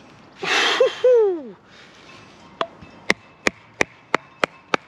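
A loud, rough noise with a falling squeal comes about half a second in. From about two and a half seconds a wooden baton strikes the spine of a Schnitzel TRI knife wedged in a log in seven sharp, even knocks, about three a second, driving the blade into the wood.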